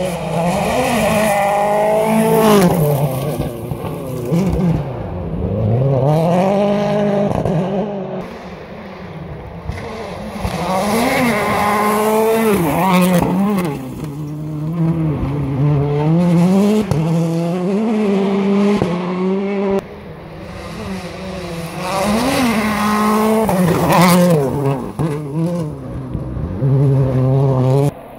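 Rally car engines at full throttle, the note climbing through the gears and dropping sharply on each change and lift-off, in three loud surges with quieter gaps between.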